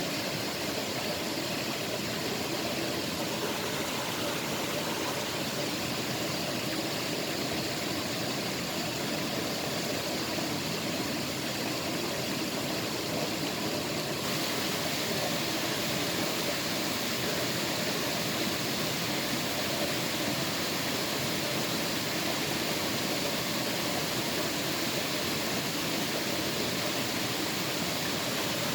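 Steady rush of running water, with a slight change in tone about halfway through.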